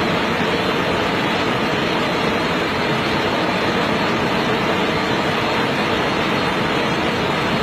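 Steady, loud rush of fast-flowing river water tumbling over rocks.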